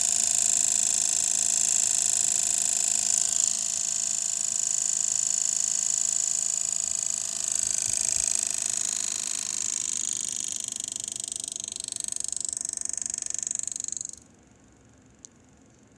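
Graphics-card cooling fan, the defective right fan of a Zotac GTX 1080 AMP Edition, running with a steady, high-pitched whine of several tones. It is the broken noise of a faulty fan. The noise fades a little, then cuts off abruptly about fourteen seconds in, and a single faint click follows.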